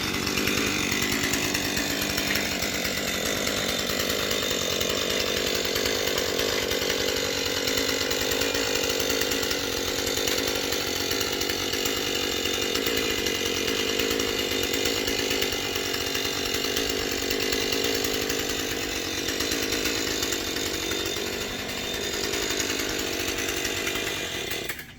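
Husqvarna 440 two-stroke chainsaw running steadily, then cutting out just before the end as the engine stalls.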